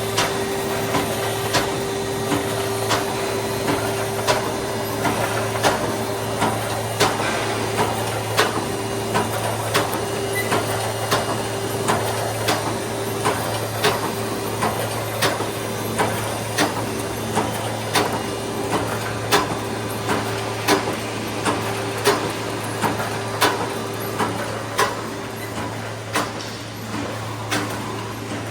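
Brickforce welding mesh machine running, cycling with a sharp clack about three times every two seconds over a steady low hum.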